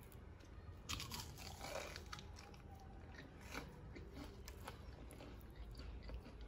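Crispy fried chicken crust crackling and crunching as fingers pull a piece apart, in scattered faint crackles, the strongest about a second in.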